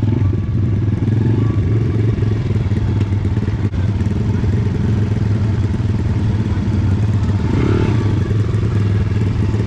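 Several pit bikes' small single-cylinder four-stroke engines running at low, steady revs while ridden slowly in single file.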